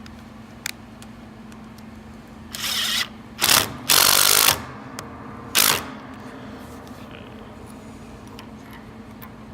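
Power drill run in four short bursts, the third longest and loudest, working into the wood of an upright piano's base where a caster wheel is being screwed back on.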